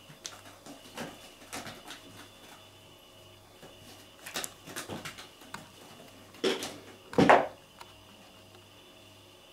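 Cat pawing and clawing at a toy hanging from a sisal scratching post on a wooden base, making scattered rustles and light knocks, with two louder, longer scrapes about six and a half and seven seconds in.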